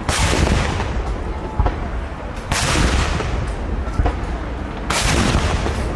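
Ceremonial saluting cannon fired three times, about two and a half seconds apart, each sharp blast trailing off over about a second.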